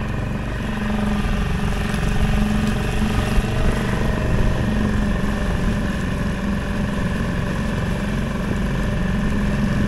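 Small outboard motor on an aluminium tinny running steadily under way, an even engine drone held at one speed.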